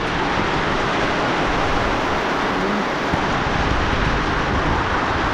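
Heavy rain falling, a steady dense hiss with no breaks.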